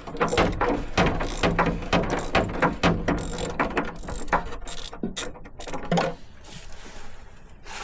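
Ratchet wrench clicking in quick runs as coarse-threaded bolts are undone, stopping about six seconds in.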